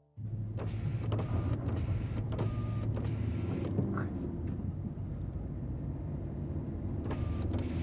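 Steady low drone of a car being driven, heard inside the cabin: engine and road noise, with scattered light clicks and a few brief faint chirps over it.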